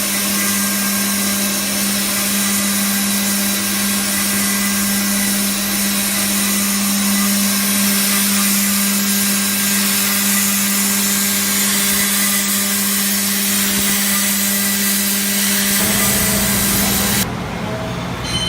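A Parpas Diamond Linear 30 five-axis portal milling machine running as it mills a mould: a steady hum over a dense, even hiss. About sixteen seconds in a lower rumble comes up, and a second later the hiss cuts off suddenly.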